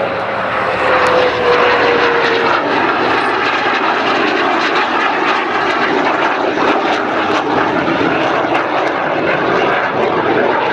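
NF-5 fighter jet's twin J85 turbojets in a display pass: a loud, steady rush of jet noise, with a whine that drops in pitch over the first couple of seconds as the jet goes by.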